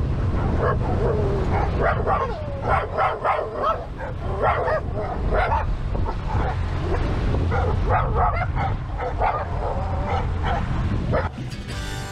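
A small dog yipping and whining again and again over the steady low rumble of a boat running through windy water. Near the end music comes in.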